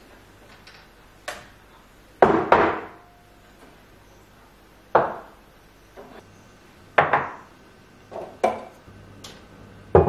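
Kitchen items being picked up and set down on a wooden shelf and countertop: a series of separate knocks, roughly one every second or so, with two of the loudest close together about two seconds in. Near the end a glass bottle is set down on the wooden counter.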